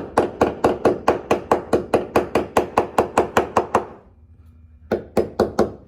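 Hammer rapidly tapping a glued wooden plug down into its hole, about five even knocks a second, stopping just before four seconds, then three or four more knocks near the end.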